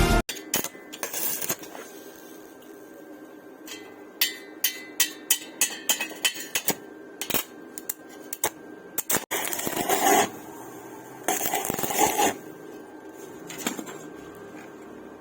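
Metal pieces clinking and being tapped, a run of sharp knocks, followed by two short bursts of harsh noise about a second each.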